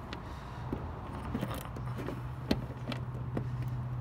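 A metal key clicking and rattling in the lock of a van's fuel filler door as it is wiggled to get it out. The new, freshly cut key sticks in the lock. A low steady hum runs underneath from about halfway.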